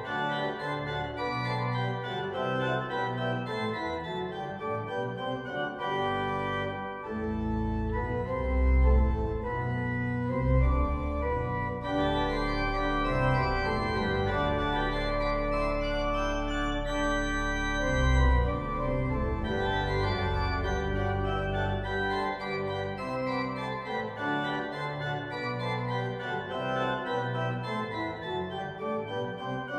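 Organ music: a slow piece of held chords, with deep bass pedal notes sounding through the middle of it.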